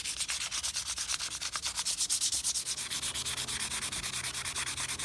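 400-grit sandpaper rubbed by hand over walnut knife-handle scales in quick, even back-and-forth strokes, about five or six a second: the final fine-grit smoothing pass.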